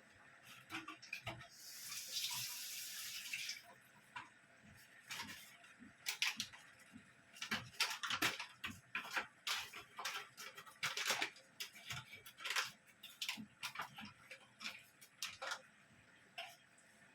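Water runs from a tap for about two seconds, then stops, followed by a string of irregular clinks and knocks.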